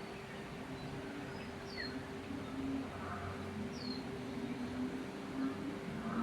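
Birds calling: a short, high, downward-slurred call repeats about every two seconds, with lower warbling notes coming and going, over a steady low hum and an even hiss.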